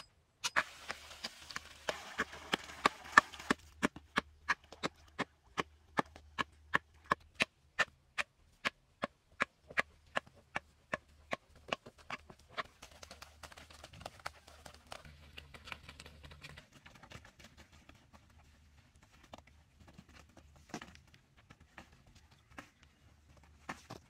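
A hoe chopping into dry earth: an even run of sharp knocks, nearly three a second, with a scraping hiss over the first few seconds. About halfway through the knocks stop, leaving a few scattered soft thuds of soil being worked.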